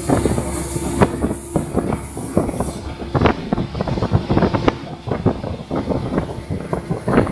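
Speedboat running at speed: the hull knocks and slaps on the water in quick, irregular thumps over a low rumble, with wind buffeting the microphone. A steady engine hum sounds under it for the first few seconds.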